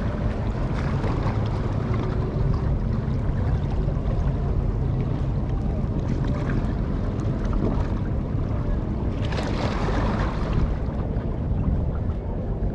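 Steady outdoor wind and water noise with a low rumble, swelling into a brief brighter rush about nine seconds in.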